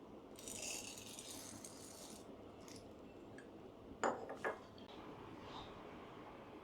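Light rattling from handling the parts of an MHW-3Bomber Blade R3 manual coffee grinder, then two sharp clicks half a second apart about four seconds in.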